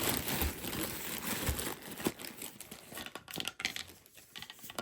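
Plastic packaging crinkling and rustling as kit supplies are handled, dense for the first couple of seconds, then thinning to scattered short clicks and rustles.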